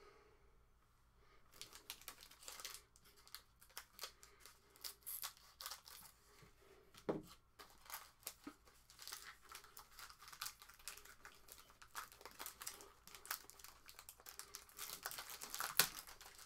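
Foil wrapper of a Crown Royale basketball card pack being torn open and crinkled by hand: a dense, irregular run of crackles that starts about a second and a half in, with a soft knock near the middle.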